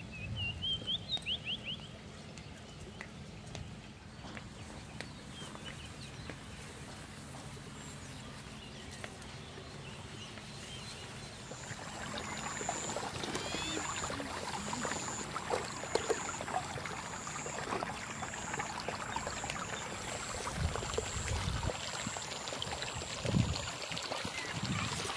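Water trickling and gurgling along a shallow field channel, growing louder about halfway through, with a quick run of chirps near the start and a high chirp repeating about once a second over the second half.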